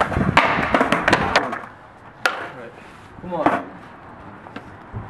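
Skateboard deck and wheels hitting brick stair steps during a kickflip down an eight-stair, with a rolling clatter and several sharp knocks in the first second and a half and one more sharp knock a little after two seconds.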